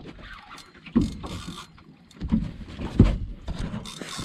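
Noise of a small boat at sea: wind and water haze with irregular low thumps, the loudest about three seconds in.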